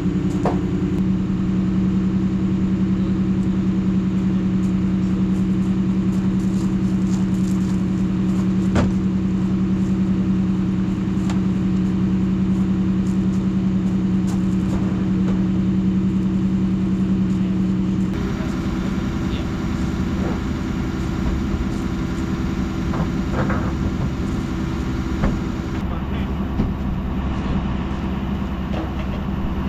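Vehicle engine running steadily under way, a constant hum. About two-thirds through it changes abruptly to a rougher, lower engine rumble with a few light knocks.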